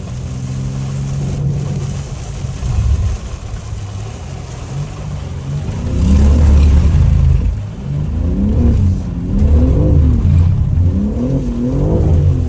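BMW M3 engine revving, fairly steady at first, then rising and falling in pitch several times in quick succession through the second half as the throttle is worked.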